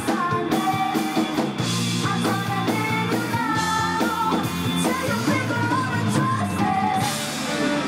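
Rock band playing with a woman singing lead over electric guitars, bass and drums.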